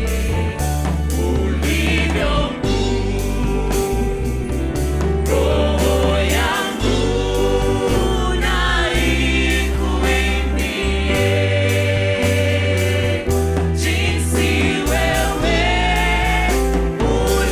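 Christian worship song sung by a group of voices, over sustained bass notes and a steady drum beat.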